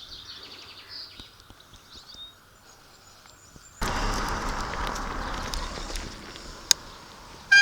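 Quiet outdoor air with faint bird chirps, then about four seconds in a sudden, steady rush of wind noise on the microphone that fades back down after a couple of seconds, with one sharp click near the end.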